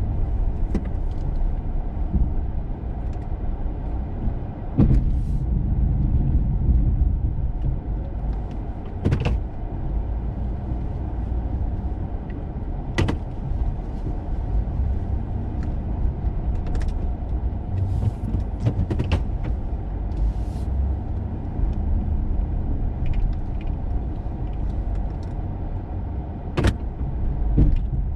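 Plow truck's engine running with a steady low rumble while plowing heavy, wet snow, with a few sharp knocks now and then.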